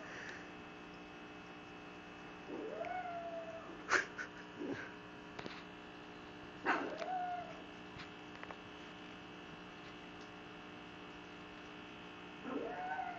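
Pug whining in drawn-out moans that rise and then hold, three of them a few seconds apart, the last near the end. A few sharp clicks fall between the first two moans, over a steady electrical hum.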